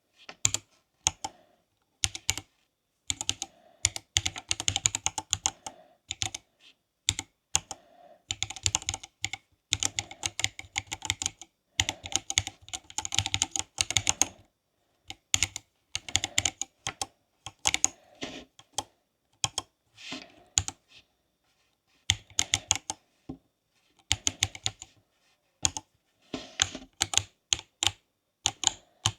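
Typing on a Silakka54 split mechanical keyboard: fast runs of key clicks in bursts of one to three seconds, broken by short pauses.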